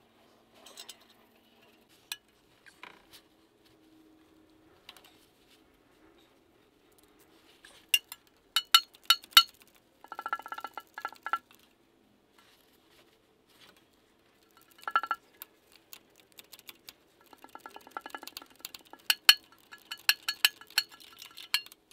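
A hand ratchet clicking in quick runs as the lower oil pan bolts are run in, with a few sharp metal clinks of bolt and socket just before the first run.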